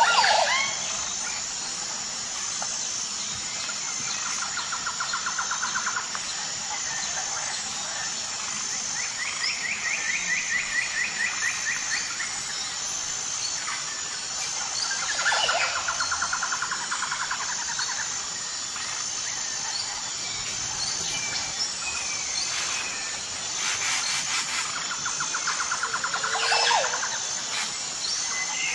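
Tropical jungle ambience: a steady high-pitched insect chorus with a pulsing whine, and birds calling over it. Four rapid trilled phrases of a few seconds each come at intervals, along with a few swooping calls.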